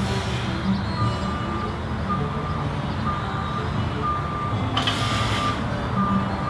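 Vehicle backup alarm beeping about once a second, one steady tone per beep, over a low rumble. A brief hiss comes about five seconds in.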